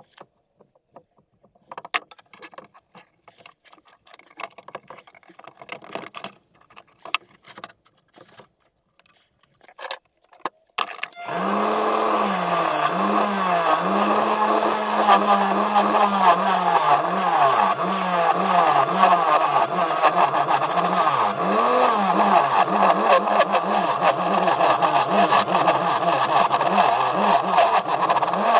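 Small benchtop wood lathe: for the first ten seconds or so it is stopped, with scattered light clicks and knocks of the tool rest and tools being handled. About eleven seconds in the motor starts and runs with a steady hum that dips in pitch again and again, while a turning gouge cuts the face of the spinning wooden bowl blank with a continuous scraping, shaving noise.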